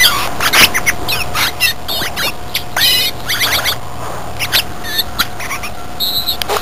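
California scrub jay singing: a rapid, rambling run of squeaky whistles, warbles and clicks, many notes a second.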